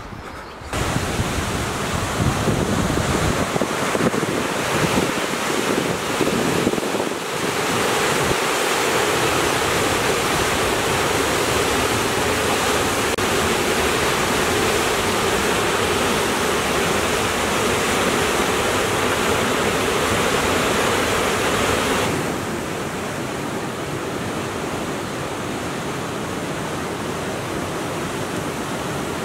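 River water pouring over the rocky salmon leap: a loud, steady rush, with wind buffeting the microphone in the first few seconds. About three-quarters of the way through it gives way to the softer, even rush of shallow river rapids.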